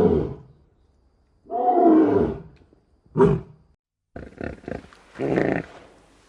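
Farm animal calls: a series of loud, harsh calls, several falling in pitch, with a short call after about three seconds and a run of shorter sounds in the last part.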